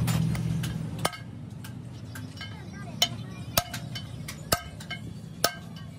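Hammer striking a steel tool against a truck clutch flywheel: sharp, ringing metal-on-metal strikes, about five of them roughly a second apart starting about a second in, with lighter taps between.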